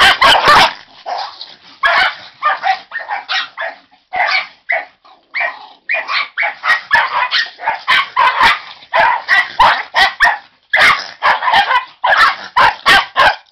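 Two dogs play-fighting close to the microphone: a rapid, loud stream of short barks, yaps and snarls with only brief pauses. It is rough play rather than a real fight.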